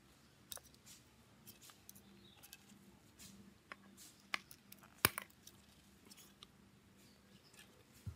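Scattered small clicks and taps of hand tools working on a smartphone, the sharpest about five seconds in, over a faint low hum.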